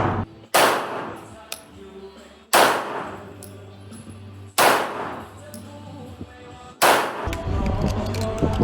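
Four handgun shots fired about two seconds apart, each trailing off in a short echo, over background music.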